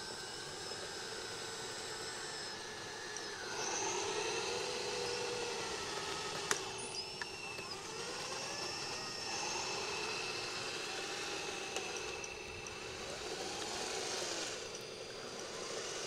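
Motors of a scale RC Liebherr 634 crawler loader model whining as it drives its tracks through sand and works the bucket, the pitch sweeping up and down with each move. A sharp click about six and a half seconds in.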